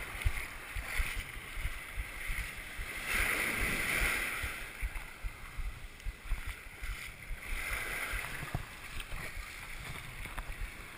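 Shallow surf washing over and around a waterproof action camera held at the water's edge: a rush of foam and water, loudest about three to five seconds in, with frequent low bumps against the camera housing.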